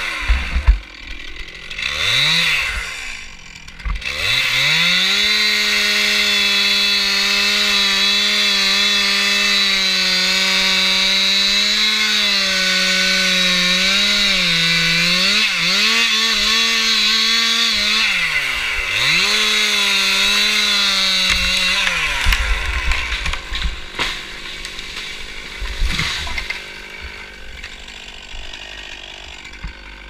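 Stihl MS 261 two-stroke chainsaw, blipped once, then held at full throttle cutting through a tree trunk for about eighteen seconds, its pitch dipping briefly twice as the chain loads in the cut. The throttle is then released and the engine winds down, followed by a few low thumps.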